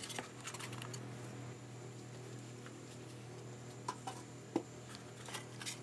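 Faint handling noise of thin plywood pieces being held and glued: a few scattered small clicks and taps, one sharper tap near the end, over a steady low hum.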